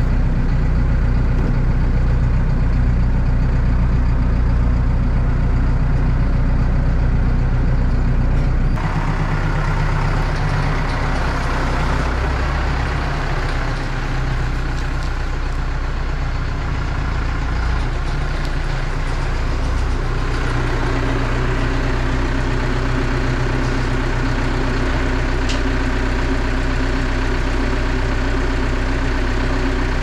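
Tractor diesel engine running steadily under way, heard from inside the cab at first; about nine seconds in the sound changes suddenly to the same kind of engine heard from outside as the loader tractor drives up.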